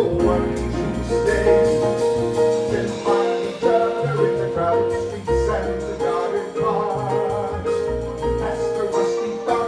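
Live jazz band of piano, bass and drums playing an instrumental passage between sung lines, a note repeated over and over in a pulsing rhythm above walking bass notes and cymbal strokes.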